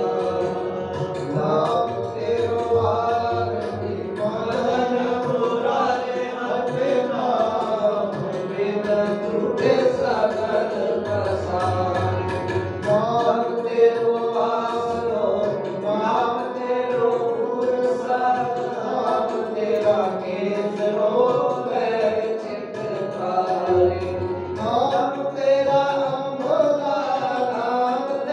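Devotional kirtan: voices singing an aarti hymn in a continuous melody, accompanied by tabla and a held drone.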